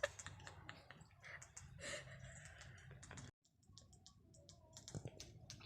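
Faint, irregular light clicks and taps, broken just after the middle by a moment of dead silence.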